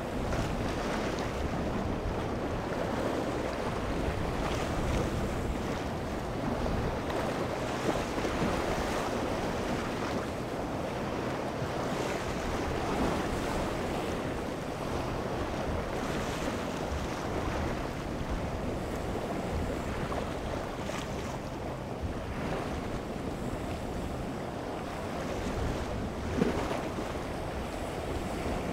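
Surf washing against jetty rocks and wind buffeting the microphone, a steady rush with a low rumble of boat engines underneath.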